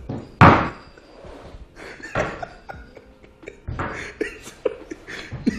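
A man laughing hard in irregular breathy bursts, the loudest about half a second in, with more fits of laughter around two and four seconds in.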